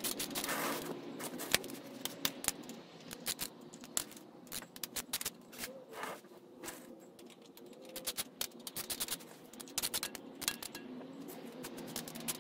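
Hand ratchet clicking in short irregular bursts, with scattered metallic taps, as the axle pinch bolts at the bottom of a dirt bike's fork legs are loosened.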